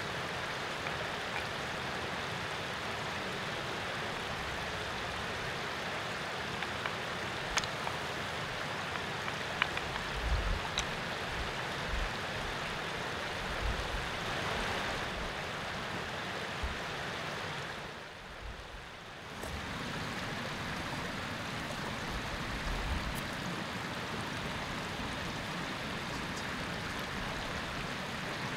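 Steady outdoor rushing noise, like flowing water or wind, with a few faint ticks and low thumps; the noise dips for about a second and a half about two-thirds of the way through.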